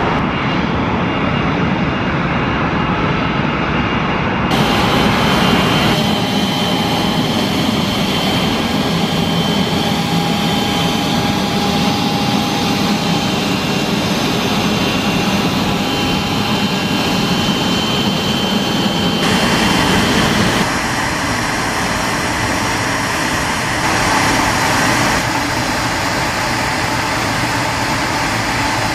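Dassault Falcon 8X business jet's three tail-mounted jet engines running at taxi power: a steady high whine over a dense rumble. The sound shifts abruptly several times as one take gives way to the next.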